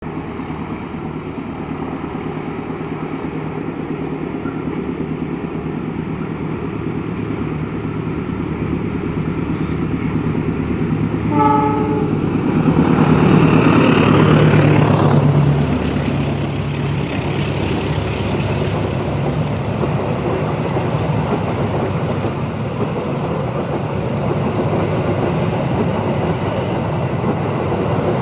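Train running past with a steady rumble and wheel noise, growing louder, with one short horn toot about eleven seconds in, a friendly greeting from the driver. It is loudest just after the toot as it passes close by, then runs on steadily.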